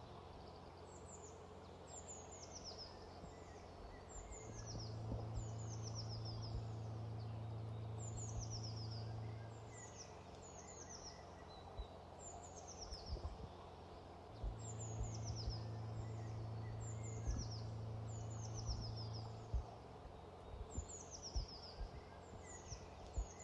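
A songbird repeatedly singing short high phrases of quick falling notes, one every second or two. A low steady hum comes and goes twice.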